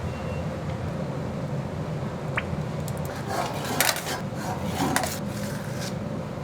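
Commercial kitchen ambience: a steady low hum with a few sharp clatters of dishes and utensils, the loudest about four and five seconds in.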